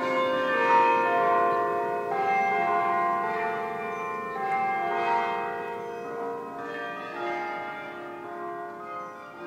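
Bells chiming a slow series of notes that ring on and overlap each other, loudest about a second in and slowly fading.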